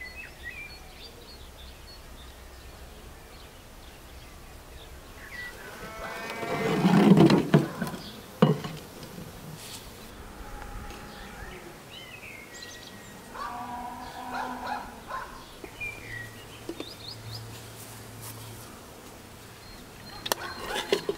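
Village farmyard ambience: small birds chirping, a loud farm-animal call about seven seconds in followed by a sharp knock, and more animal calls around halfway through.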